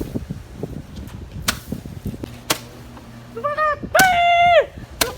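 Firecrackers going off with sharp single bangs, four in all, spaced a second or so apart. Near the end comes a loud, shrill held cry that drops in pitch as it stops.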